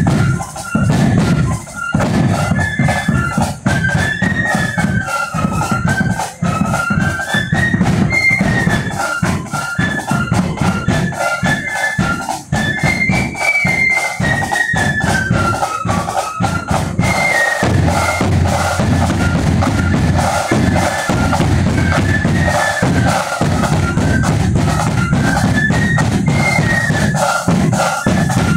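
Marching flute band playing a tune: flutes carry a high, rising and falling melody over a regular beat of bass drum and side drums.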